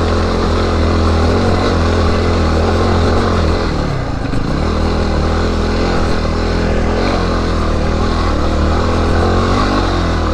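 Yamaha WR250R dirt bike's single-cylinder four-stroke engine running under load on a rough climb. The engine note dips briefly about four seconds in, then picks back up.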